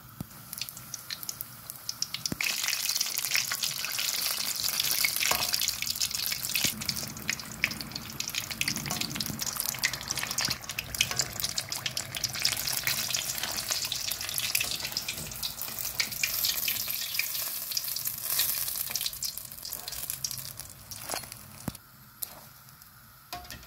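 Chicken samosas deep-frying in hot oil in an aluminium kadai: a dense, steady crackling sizzle that builds about two seconds in and fades near the end.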